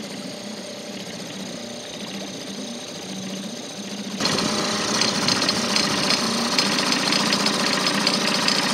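Small tiller-steered outboard motor running steadily with a fast pulsing beat. About four seconds in the sound suddenly gets louder, with a strong hiss of water and wind added.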